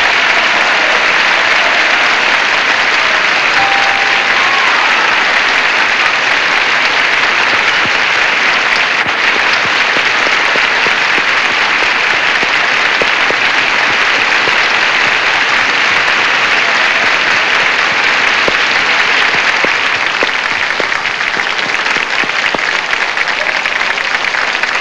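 Studio audience applauding steadily for a contestant's winning answer, easing off slightly near the end.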